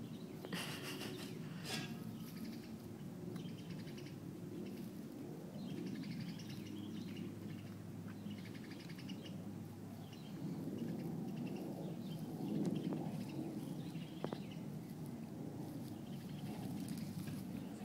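An animal grazing, tearing and chewing grass, with a few crisp tearing strokes near the start. Birds chirp in the background.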